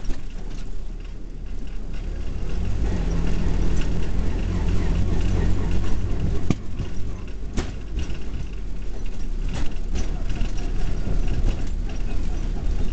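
Auto-rickshaw's small engine running while the three-wheeler drives along, heard from inside the open passenger cabin as a steady low rumble. Two sharp knocks come about six and a half and seven and a half seconds in.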